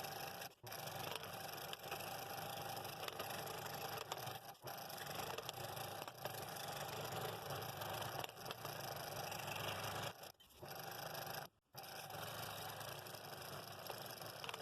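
Scroll saw running and cutting thin 1/4-inch wood, a steady buzzing with a few very brief breaks.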